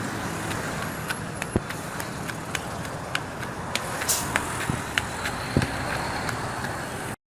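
Roadside traffic noise: a steady rush of passing vehicles, with scattered sharp clicks, cutting off abruptly near the end.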